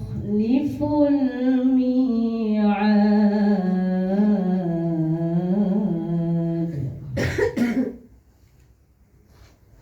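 A woman's voice in melodic Qur'anic recitation (tajweed), holding a long note whose pitch waves up and down in ornamented turns. It ends about seven seconds in with a short breathy burst, and then goes quiet.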